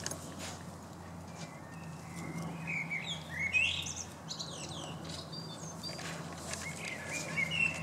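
Wild birds chirping and singing in short, gliding phrases, with a steady low hum underneath and a few faint clicks or rustles.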